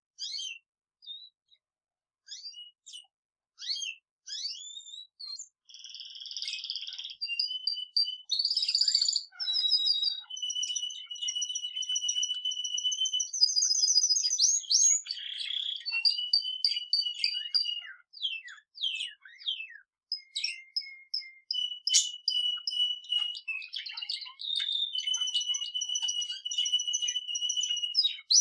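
A budgerigar and a male canary singing together: scattered short chirps at first, then dense, continuous song from about six seconds in, with long, fast, even trills.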